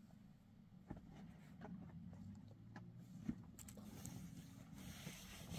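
Near silence: a faint low hum with a few soft clicks and one sharper tap about three seconds in.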